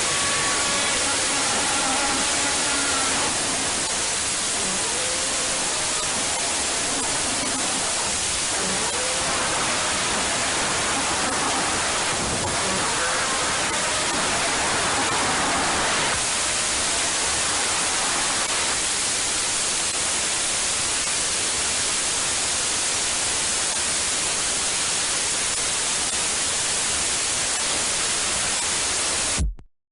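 Loud, steady static-like noise hiss, an edited meme sound effect, with faint wavering tones buried in it in the first few seconds and again midway; it cuts off suddenly just before the end.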